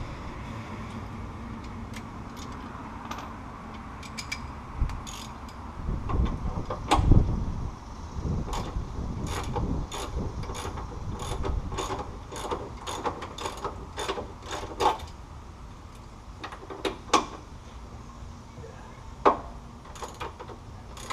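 Ratchet wrench clicking in short runs as a fastener is turned, with a few heavier metal clunks about six to eight seconds in.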